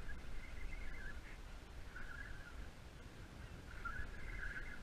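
Wind rumbling on the microphone, with short, high, raspy bursts every second or two.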